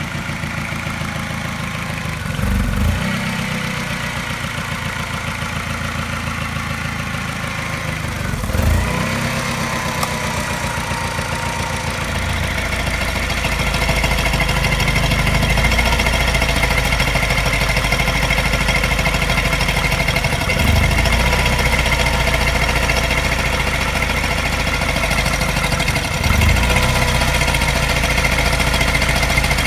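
Mini N12 four-cylinder petrol engine idling with a regular tap, its idle surging briefly four times. The owner takes the tap to coincide with a regular mild misfire that makes the idle seem to pulse.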